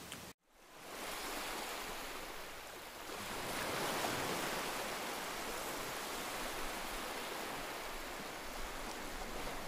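Ocean surf breaking and washing up a sandy beach: a steady rush of waves that comes in about a second in and swells a little a few seconds later.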